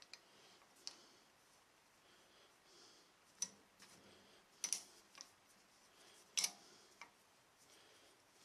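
Sparse, sharp metallic clicks and ticks, about eight of them, the loudest near the middle and about six and a half seconds in, as the machine's quill is wound back up out of the cut. No spindle motor is running.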